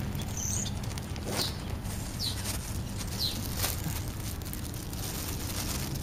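Plastic bags rustling and crinkling as food is shaken out onto the ground, with a few short, high, falling bird chirps and a steady low rumble underneath.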